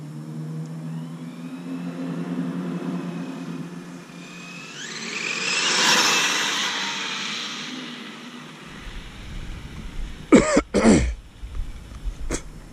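A Traxxas Slash 4x4 RC truck's electric motor whining as the truck comes in at speed, rising in pitch and peaking loudly about six seconds in as it passes, then fading. Near the end come two loud thumps and a click.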